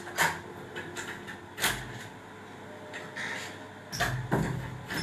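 A few short knocks and clicks: one just after the start, a louder one a little before the middle, and a quick cluster near the end, over faint room noise.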